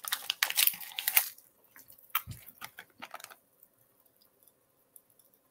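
Pop Rocks candy crackling and popping in a mouth: a dense run of sharp little crackles for about the first second, thinning to scattered pops that die out after about three seconds.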